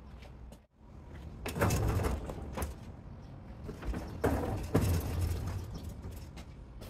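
A rolling tool chest's casters rumbling across a concrete garage floor as it is pushed, with knocks and rattles, in two pushes.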